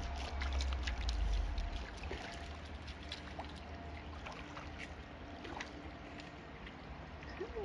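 Shallow creek water trickling and bubbling over stones, a steady rush dotted with small ticks and splashes. Wind rumbles on the microphone for the first two seconds or so.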